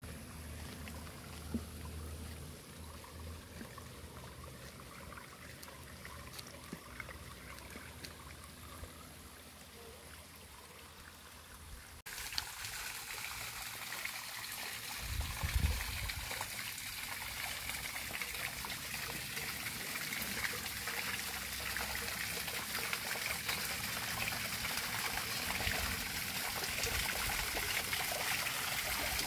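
Shallow water trickling over stones. About twelve seconds in the water sound jumps abruptly louder and keeps building into the steady splashing of a small waterfall pouring into a rock pool, with a brief low rumble a few seconds after the jump.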